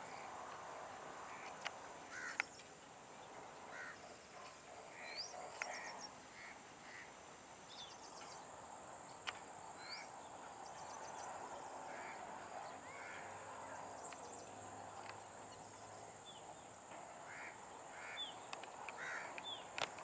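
Scattered bird calls, short notes and quick rising chirps, repeating every second or so over a steady high-pitched insect whine and a soft hiss of running water.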